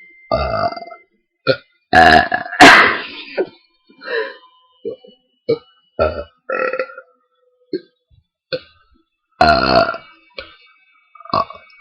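A person burping on purpose, over and over: about a dozen separate belches, some short and some drawn out. The loudest and longest comes about three seconds in, and another long one near ten seconds.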